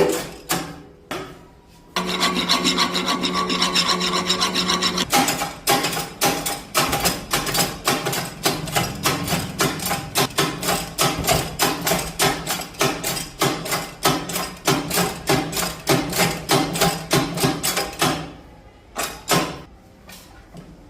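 Hand rasping on metal: a steady scraping for a few seconds, then quick even back-and-forth strokes, about three a second, like filing or rubbing a part by hand, stopping a few seconds before the end.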